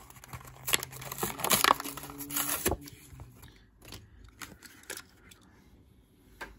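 Hot Wheels blister card being torn open by hand: ripping cardboard and crackling plastic, loudest for the first three seconds or so, then a few lighter clicks and rustles.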